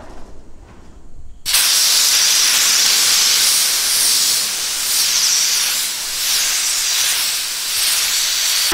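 Compressed-air blow gun on an air-compressor hose hissing as it blows dust off the corrugated steel wall of a grain bin. It opens up suddenly about a second and a half in, then keeps going loudly, swelling and easing slightly.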